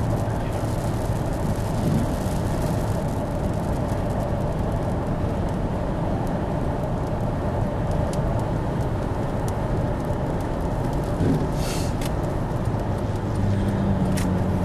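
Steady engine and road noise of a motor vehicle running.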